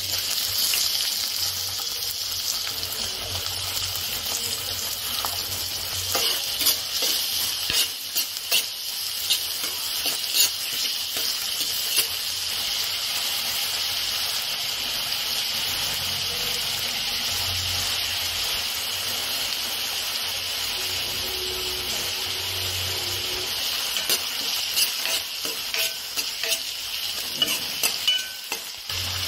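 Chopped onions and green chillies frying in hot oil in a stainless steel pan: a steady sizzle that starts suddenly as the onions drop in. A spatula scrapes and taps against the pan while stirring, most between about six and twelve seconds in and again near the end.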